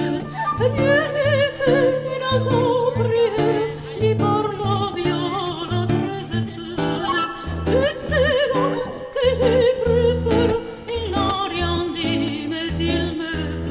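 Music with no words sung: a melody with heavy vibrato over a pulsing bass line.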